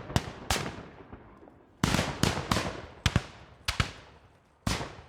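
Scattered gunfire: about eight single shots at irregular intervals, each a sharp crack that trails off in echo, with lulls of up to a second between them.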